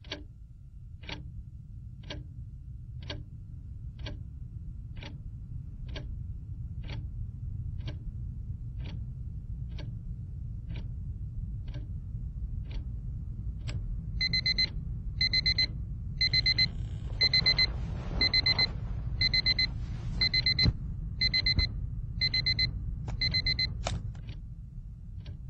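Alarm clock ticking about once a second, then its alarm going off as short, high electronic beeps about once a second, which stop near the end when a hand switches it off. A steady low rumble runs underneath.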